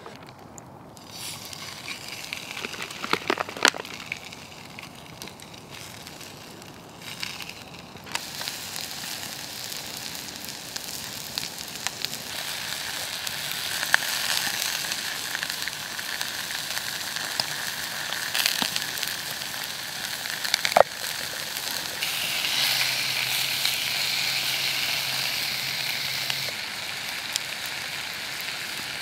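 Sausages sizzling in a cast-iron frying pan over an open wood fire. The sizzle is a steady hiss that comes in about a quarter of the way through and grows louder toward the end, with sharp crackles from the burning wood now and then.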